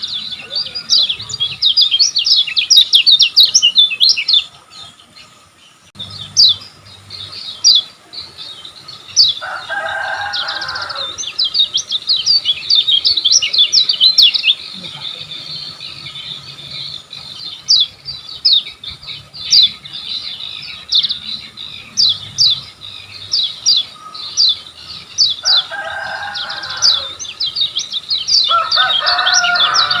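A kecial kuning (Lemon-bellied White-eye) singing fast, high, chattering song: dense runs of quick sweeping notes with a short break about five seconds in. Lower-pitched sounds cut in briefly three times.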